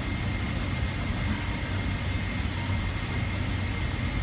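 Steady cabin noise inside a Boeing 777-300ER airliner: an even rumble and hiss with a constant low hum and a faint, thin high tone.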